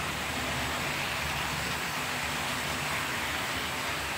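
OO gauge model train running past on the track, hauling a rake of tank wagons: a steady rolling whirr of motor and wheels on the rails.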